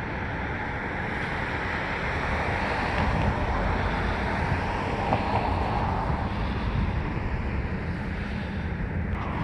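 Steady rushing outdoor noise with a low rumble, swelling a little in the middle.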